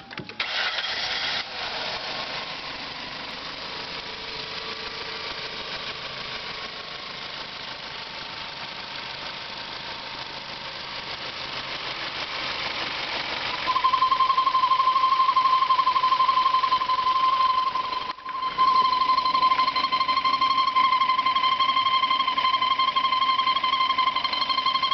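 Ford Zetec engine in a 1997 Mondeo running, with a loud, steady, high-pitched squeal that comes in about halfway through and holds one pitch, cutting out briefly once before resuming. The squeal appeared after the car's CD4E automatic transmission was overhauled, and its source has not been located.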